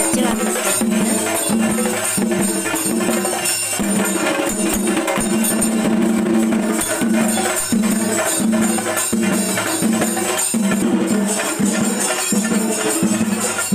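Procession percussion: a hand-beaten drum playing a steady, repeating rhythm over constant jingling metal percussion.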